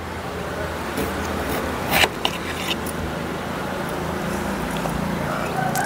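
A kitchen knife cuts through a raw sprouted potato: a few short, crisp cutting clicks, the loudest about two seconds in, as the blade slices and meets the plate. Under it runs a steady low engine hum, which grows louder near the end.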